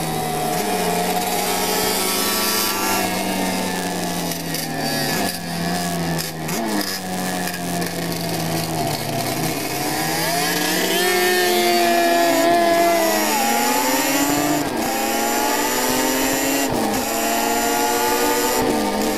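Onboard 350cc classic racing motorcycle engine running hard, its note rising under acceleration and dropping sharply at each gear change or when the throttle is eased. The recording crackles throughout, which the uploader puts down to moisture in the camera.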